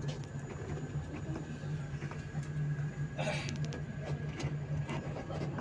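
Bus engine running with steady low drone and road noise, heard from inside the cabin while the bus is moving. A short burst of hiss and clicks comes about three seconds in.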